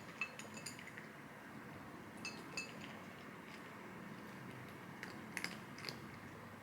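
Light clinks of small hard objects in three short clusters, each with a brief high ringing.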